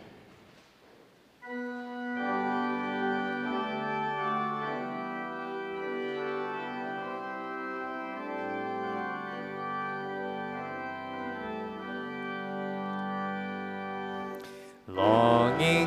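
Organ playing the introduction to a hymn in sustained chords that start about a second and a half in. Singing begins near the end.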